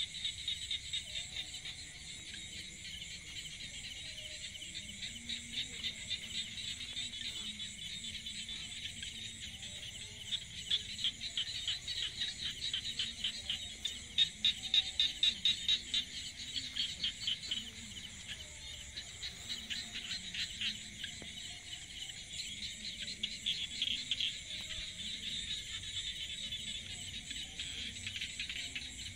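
A dense chorus of insects trilling: a high, steady buzz pulsing rapidly, swelling louder several times a second in stretches, loudest around the middle.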